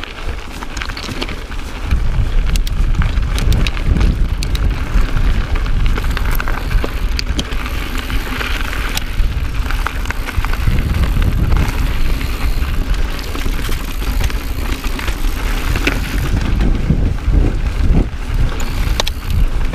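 2018 Intense Carbine 29er mountain bike ridden along a rocky dirt trail, heard from a camera on the bike or rider: wind buffeting the microphone, heavier from about two seconds in, over tyres rolling on gravel and rock, with many sharp clicks and rattles from the bike as it hits bumps.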